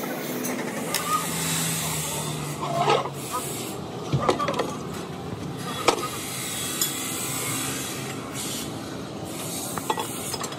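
Metal clanks and knocks as a Massey tractor engine block with its crankshaft fitted is tipped upright and handled on a steel trolley: a few sharp knocks about three to six seconds in, over a steady background hiss.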